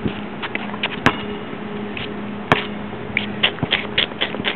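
Basketball on an outdoor court: a few sharp knocks as a missed shot comes off the rim and bounces on the hard court, the strongest about a second in and about two and a half seconds in. A quick run of light clicks and scuffs follows near the end, over a steady low hum.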